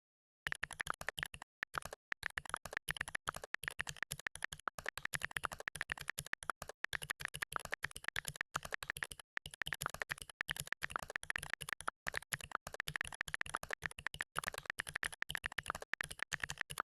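Rapid typing on a keyboard: a fast, continuous run of key clicks, many strokes a second, starting about half a second in.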